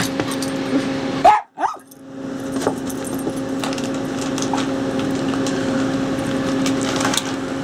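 Jack Russell terrier giving a short bark about a second in, over a steady low hum.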